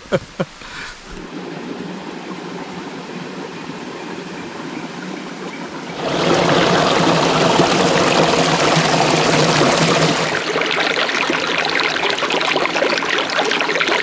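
Shallow forest stream splashing and rushing over rocks close to the microphone, a steady wash of water sound that grows sharply louder about six seconds in.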